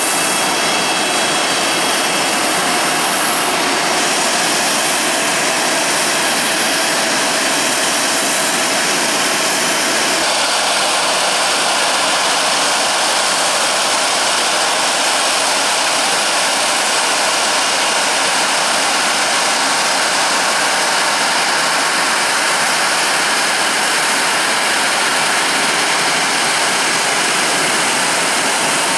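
Boeing 777-300's Rolls-Royce Trent 892 turbofan engines running at taxi power: a steady, loud jet rush with thin high whining tones, whose pitch changes about ten seconds in.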